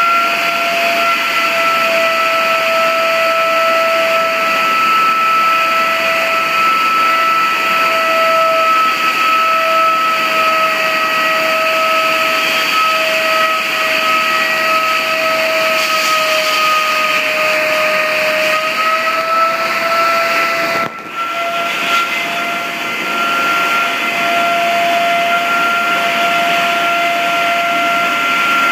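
Wolf 12-VR ceiling blaster with vacuum blast recovery running against a concrete ceiling: a loud, steady high whine over a dense hiss. The whine sags slightly in pitch about two-thirds of the way through, then recovers, and the sound dips briefly a little later.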